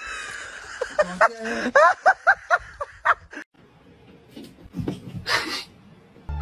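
A person laughing in quick, high-pitched bursts for about three seconds. About five seconds in comes a short rustle.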